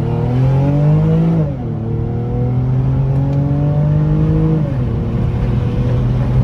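Lexus engine through a freshly fitted axle-back exhaust with the muffler removed, accelerating hard. The engine note climbs in pitch, drops sharply at an upshift about a second and a half in, climbs again, drops at a second upshift near the end, then pulls steadily.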